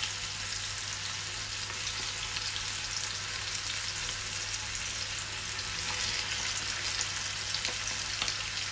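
Seasoned chicken breasts frying in hot ghee in a nonstick pan: a steady sizzle with fine crackles and pops throughout.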